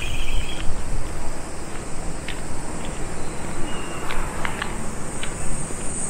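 Wind rumbling on the microphone over the steady wash of surf on a seashore, with a few brief high chirps in the middle.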